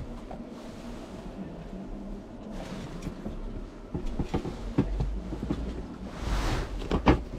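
Handling noise close to the microphone: a trainer being turned over and put back on a shelf and a cloth bag being pulled out, with a padded coat rubbing throughout. There are scattered soft knocks in the second half, a rustle near the end, then two sharp knocks.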